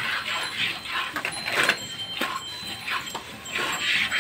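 Hand milking of a cow into a steel pail: jets of milk squirting from the teats into the pail in a steady rhythm, a short hiss about twice a second as the hands work in turn.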